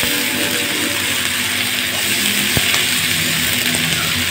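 Fresh moringa leaves sizzling steadily in hot oil in a kadhai as a spatula turns them, with one sharp knock of the spatula against the pan about two and a half seconds in.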